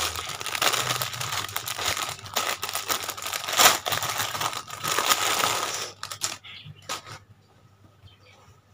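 Clear plastic packaging bag crinkling densely as it is handled and a garment is taken out of it. The crinkling stops about six seconds in, with a few last crackles after it.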